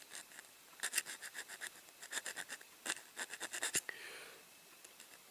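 Small hand file rasping across a die-cast zinc-alloy toy van body in short runs of quick strokes with brief pauses, filing off a casting line.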